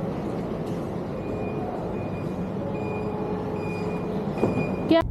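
Engine and traffic noise with a repeating short high beep, about three every two seconds, typical of a vehicle's reversing alarm, starting about a second in. A short sharp sweep of sound comes just before the end.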